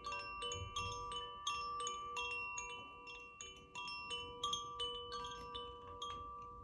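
Koshi chimes tinkling: irregular ringing strikes several times a second on a handful of pitches, the notes sustaining and overlapping.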